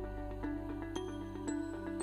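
Background music: a soft instrumental with notes struck about twice a second over a sustained low bass.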